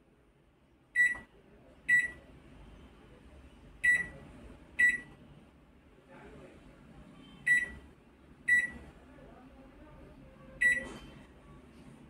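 Control panel of an LG microwave oven beeping at each key press: seven short, sharp beeps at uneven spacing, each press registered by the newly fitted touchpad. A faint steady hum sits between the beeps.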